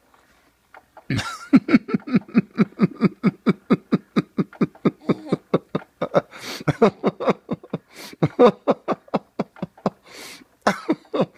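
A person laughing in a long, rhythmic run of short pulses, about four or five a second, with a few louder bursts near the end.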